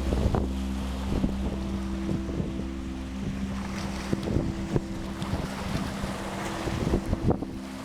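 Sea waves washing and splashing, with wind buffeting the microphone. Under them runs a held low musical chord.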